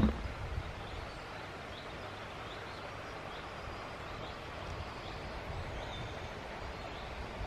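Quiet countryside ambience: a steady low rumble and hiss with faint, scattered songbird chirps, after a single footstep on gravel right at the start.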